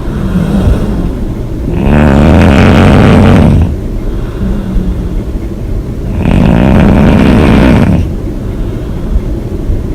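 A woman snoring hard: two long, loud, rattling snores about four seconds apart, with quieter rasping breaths between them in a steady sleep-breathing rhythm.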